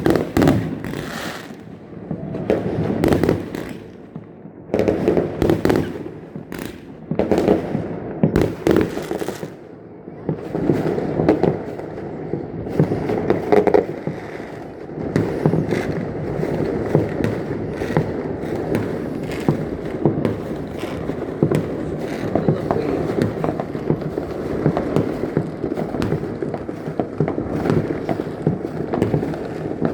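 Fireworks going off: irregular bursts of loud crackling, turning into a dense, near-continuous crackle from about halfway through.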